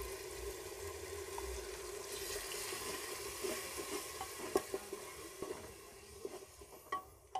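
Wet onion paste sizzling in hot mustard oil in a pressure cooker as a wooden spatula stirs it, with a few knocks and scrapes of the spatula against the pot. The sizzle slowly dies down over the second half as the paste cools the oil.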